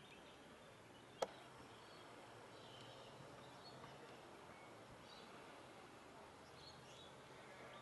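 Near silence: faint outdoor background with a few faint, high bird chirps, and one sharp click about a second in.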